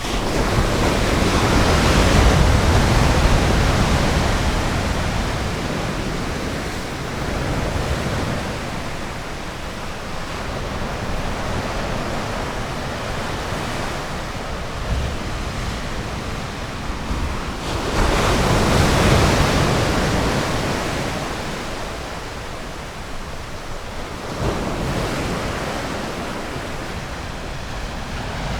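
Ocean surf breaking and washing up a beach. The noise swells loudly over the first few seconds and again about two-thirds of the way through, then ebbs back to a steady wash.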